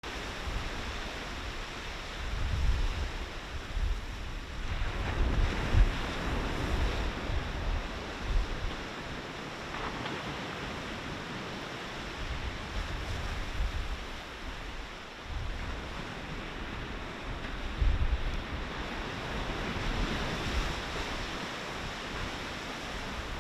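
Sea surf washing in on the shore, swelling up around five seconds in and again near the end, with wind gusting on the microphone.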